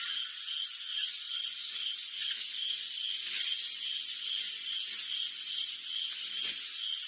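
Crickets chirping in a steady high-pitched night chorus, with repeated short chirps pulsing over a continuous trill and a few louder chirps in the first couple of seconds.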